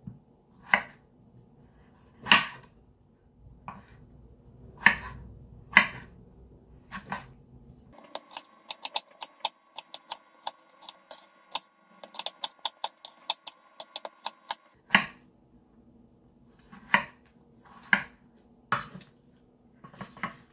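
Chef's knife cutting tomatoes on a bamboo cutting board: single knocks of the blade on the wood every second or so, with a faster run of quick chops for several seconds midway.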